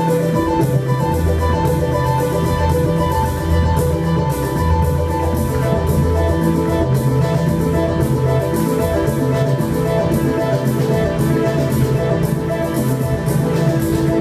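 Live electronic music from synthesizers: short note patterns repeating in a loop over a pulsing bass line.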